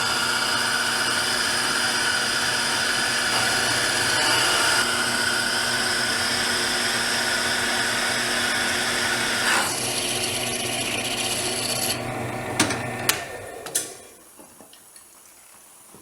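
Drill press grinding a hole through glass: a steady motor whine with a gritty rasp, fed in with light pressure for the final breakthrough so the back side does not chip. About twelve seconds in the grinding stops and the sound dies away, with a few sharp clicks.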